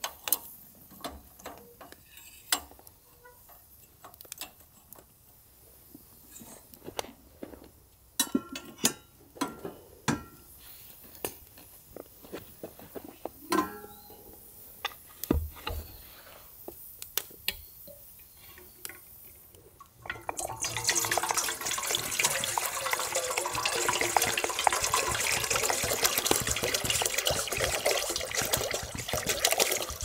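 Scattered light knocks and clicks of food preparation, then about two-thirds of the way through water starts running, a steady rushing pour that carries on to the end.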